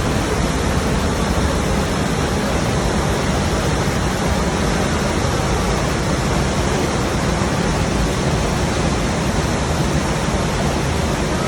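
Steady rushing noise of water, even and unbroken, with no distinct splashes or knocks.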